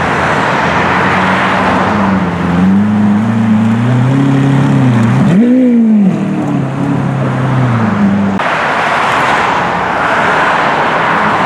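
Lamborghini Aventador's V12 engine rumbling at low speed as the car pulls in, with one quick rev blip about five and a half seconds in. After about eight seconds the engine note gives way to a rushing traffic noise.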